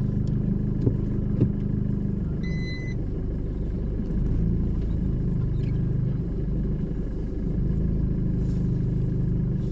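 Car engine idling, heard from inside the cabin as a steady low hum. Two small clicks come about a second in, and a short beep about two and a half seconds in.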